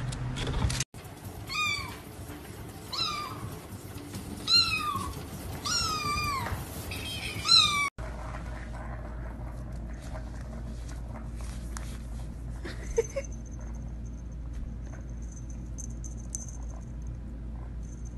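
A cat meowing about five times, each meow short and falling in pitch, then a quieter stretch with a few faint clicks.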